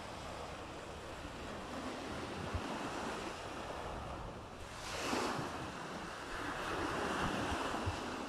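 Sea surf washing on a beach: a steady rush of waves that swells with a breaking wave about five seconds in and again toward the end.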